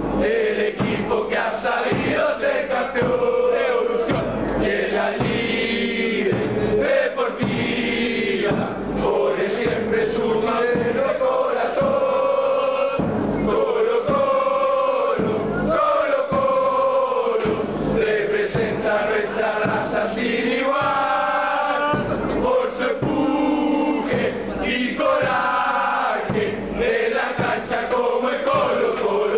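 Crowd of football supporters singing a terrace chant together in unison, with a supporters' band's trumpet and drum playing along.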